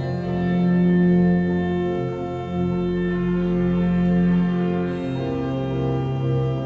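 1981 Kleuker pipe organ played four hands, sounding sustained full chords with a strong bass that change every second or two, in an organ transcription of a southern Italian band march.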